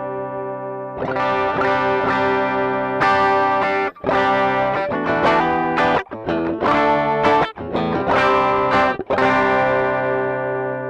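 Electric guitar strumming chords through a J. Rockett Archer klon-style overdrive pedal. The chords are cut short a few times in the middle, and the last chord is left ringing and fading out.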